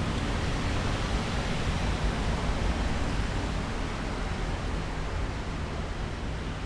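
Wind buffeting an outdoor microphone: a steady rushing noise with a rumbling low end and no distinct events.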